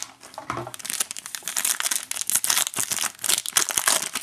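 Foil wrapper of a trading-card pack being torn open and crinkled by hand, in quick, irregular crackles.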